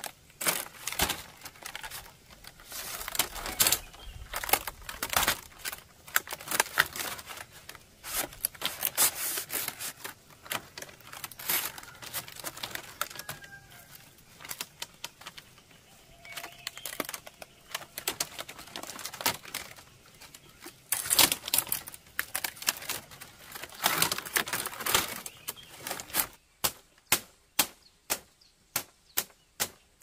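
Split bamboo strips clicking, cracking and rattling as they are handled and woven by hand, in irregular clusters. Near the end, a steady run of sharp knocks begins, a little over two a second.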